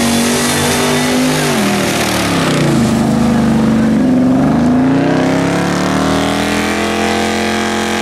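Willys M38A1 jeep's engine revving hard as it pushes through a deep mud-bog pit: the revs drop about a second and a half in, climb again from about three seconds, and are held high to the end.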